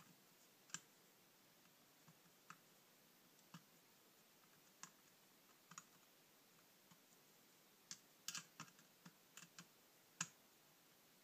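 Faint, scattered metallic clicks of a small screwdriver working on the screws of a 1979 Honda CB650 carburetor, against near silence. The clicks come a second or so apart at first, then bunch up in a quick run about eight seconds in, with one sharper click near the end.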